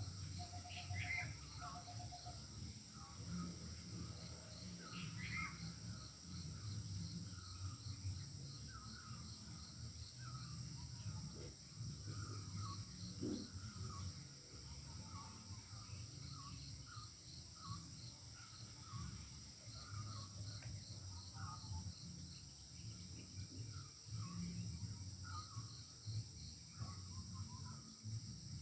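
Stone roller worked back and forth over a flat grinding stone, crushing whole spices with a low scraping sound that comes and goes. Crickets chirr steadily and a bird calls again and again behind it.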